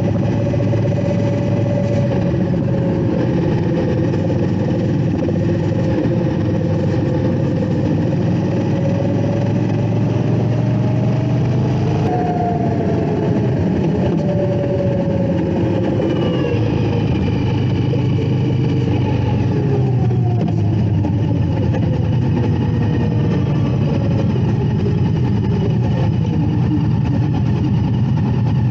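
Indian Scout Bobber's V-twin engine running at road speed. Its pitch rises slowly and then falls away about halfway through, with other motorcycles in the group running alongside.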